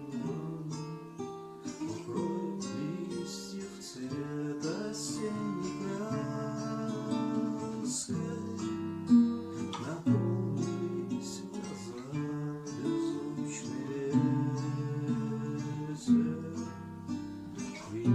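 Acoustic guitar playing chords in a fairly even rhythm, with notes ringing on between strokes.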